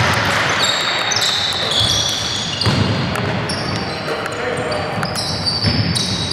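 Indoor basketball game: many short, high squeaks of sneakers on the court, with a few low thuds of the ball bouncing, over background voices.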